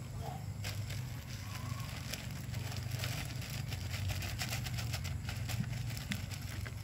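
A clear plastic bag of flower petals crinkling and rustling in many short crackles as it is handled, over a steady low hum.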